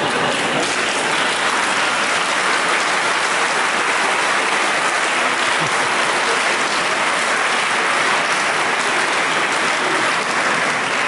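Audience applauding: steady, dense clapping that begins to fade near the end.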